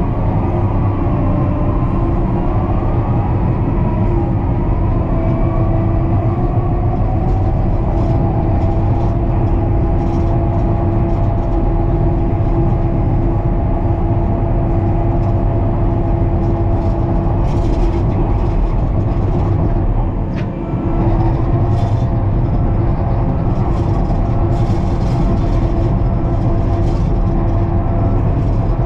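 John Deere 550K crawler dozer running at work: a steady diesel rumble with a constant whine above it. From a little past halfway, clicks and rattles join in, and the sound dips briefly about two-thirds of the way through.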